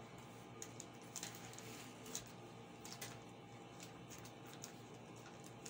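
Scissors cutting through a plastic courier pouch: faint, short, crisp snips and crinkles at an irregular pace, about one or two a second.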